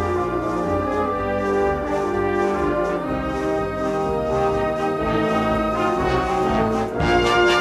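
Brass band playing a slow piece of long held chords, with the notes changing about once a second.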